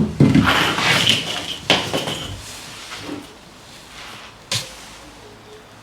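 Tools and materials being handled: a sharp knock, then a rustling clatter with another knock for about two seconds, and a single sharp click later on.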